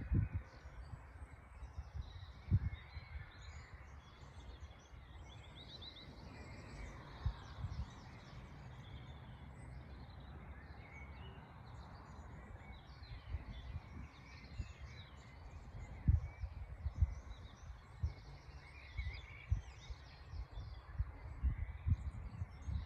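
Garden birds singing and chirping, many short calls overlapping, with wind buffeting the microphone in irregular low gusts.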